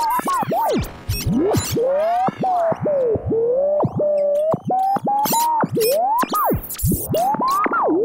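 Old radio being tuned across the dial: squealing whistles that swoop up and down in pitch, breaking off abruptly and starting again many times over.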